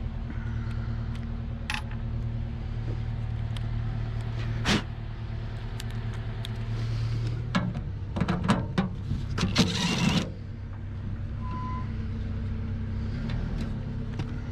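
Metal clinks and knocks from appliance parts being handled and worked loose, over a steady low engine hum. A louder stretch of rattling metal clatter comes about eight to ten seconds in.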